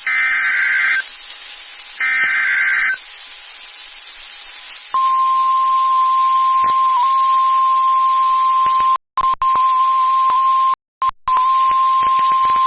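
NOAA Weather Radio Emergency Alert System tones: the last two of the one-second SAME digital header bursts, which encode the alert about to be read. After about two seconds of hiss, the steady 1050 Hz Weather Radio warning alarm tone starts about five seconds in and is cut by two brief reception dropouts and static clicks.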